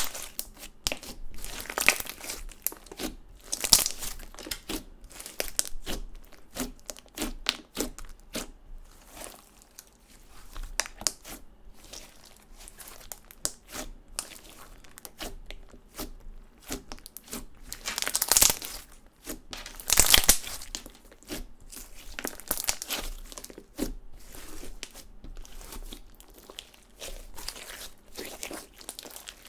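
Hands squishing, pressing and stretching clear slime with makeup and glitter mixed in: irregular sticky crackles and pops, with two louder bursts about two-thirds of the way through.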